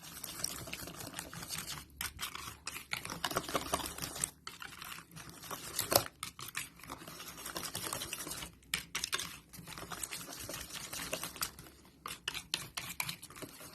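Batter of egg, milk and flour being stirred in a bowl: a run of irregular clicks and taps from the utensil against the bowl.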